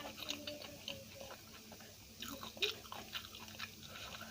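A person chewing food close to the microphone: wet mouth sounds with sharp clicks and crunches, in two bunches, one at the start and one about two and a half seconds in.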